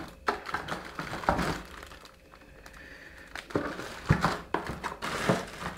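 Clear plastic bags around speakers crinkling and rustling as a hand handles them inside a divided cardboard carton, with a few sharp knocks. The sounds come in irregular spells, with a quieter pause in the middle.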